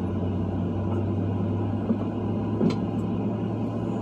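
Steady low drone inside the passenger cabin of a Boeing 737-700 on the ground before takeoff, with one short click a little past the middle.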